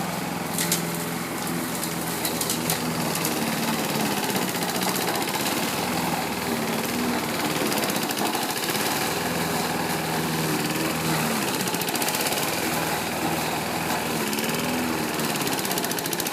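Lawn mower engine running steadily, with a few sharp clicks in the first three seconds.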